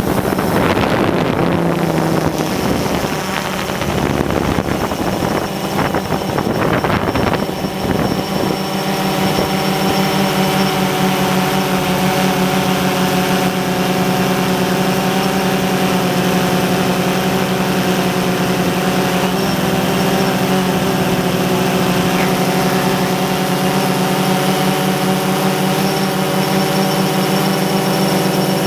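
Multirotor drone's motors and propellers running with a steady pitched hum. The hum is rough and unsteady for the first several seconds, then settles.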